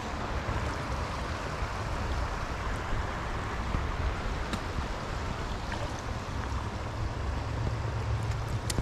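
Small stream's riffles running steadily, with a low rumble underneath and a couple of faint ticks.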